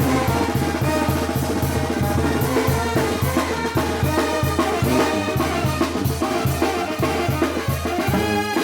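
Mexican brass banda playing a son: trumpets and other brass carry the melody over a stepping tuba bass line and a steady drum beat.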